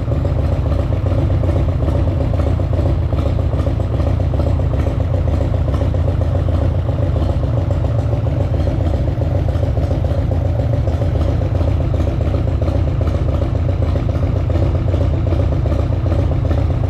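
Harley-Davidson Sportster's air-cooled V-twin idling steadily, with a light knocking from the front cylinder that the owner suspects is the hydraulic lifters tapping on poor oil now that the engine is hot.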